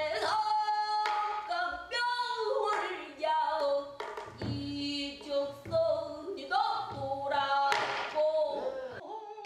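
Pansori singing by a woman: a strong solo voice holding long notes that bend and waver in pitch. A few sharp strikes are heard between the phrases.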